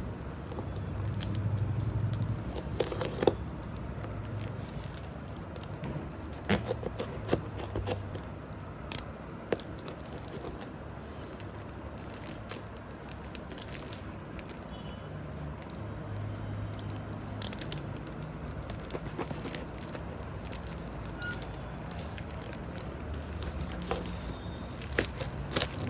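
A parcel being unwrapped by hand: packaging rustling, crinkling and tearing, with scattered sharp clicks and taps.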